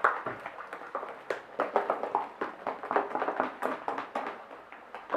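Hands squeezing and kneading fluffy shaving-foam slime: a run of irregular small clicks and squishes.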